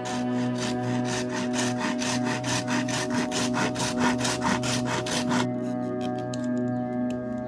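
A small toothed saw blade cuts back and forth through green bamboo in fast, even strokes, about five or six a second. The sawing stops about five and a half seconds in.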